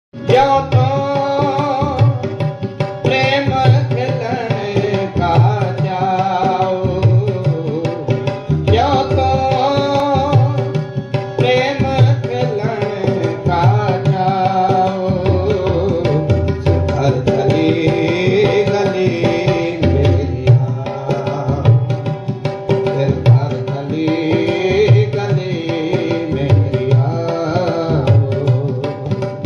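Sikh kirtan: devotional hymn singing to harmonium, with tabla keeping a steady rhythm.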